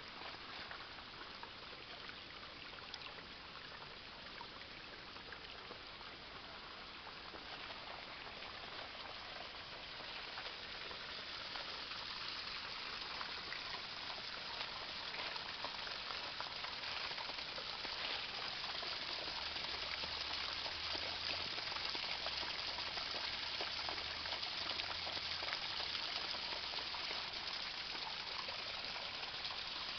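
Running water of a small stream, a steady rush and splash that grows louder from about ten seconds in.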